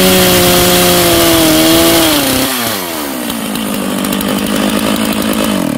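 STIHL MS 660 two-stroke chainsaw with a long bar cutting through a log at full throttle, its engine note steady under load. About two and a half seconds in the throttle is eased off and the engine drops to a lower speed.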